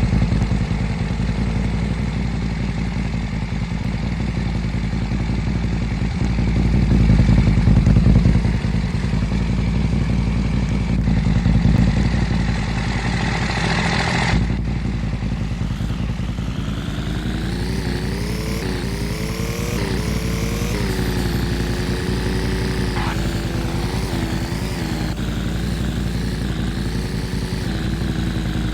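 Motor vehicle engine running while under way, with a steady low drone. About halfway through, the sound changes abruptly; then the engine pitch climbs for several seconds, drops back once and holds nearly steady.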